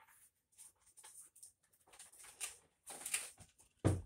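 Faint, irregular short scratchy noises, with one louder thump near the end.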